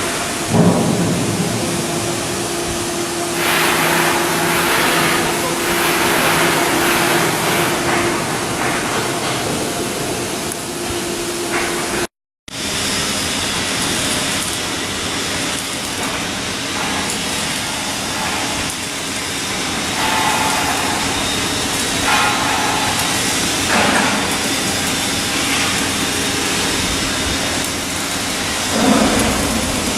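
Shipyard work noise on a building berth: a steady hiss and machinery hum with occasional knocks. The sound cuts out briefly about twelve seconds in and resumes.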